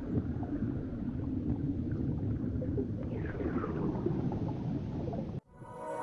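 Steady low rush of river water with faint gurgles and a brief faint sliding sound about three seconds in. It cuts off abruptly near the end, where music begins.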